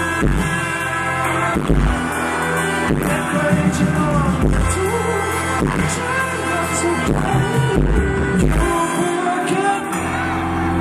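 Live pop-rock band performance: a male singer's vocals over electric guitar and bass guitar, with regular drum hits.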